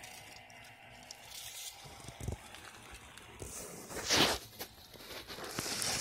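Rustling, scraping handling noises as things are moved around inside an air handler cabinet, with a low thump about two seconds in and a louder brushing rustle about four seconds in.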